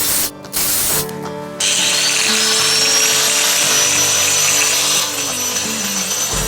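A power tool runs loudly on metal, stopping briefly twice in the first second and a half before settling into a steady run with a high whine. Background music plays throughout.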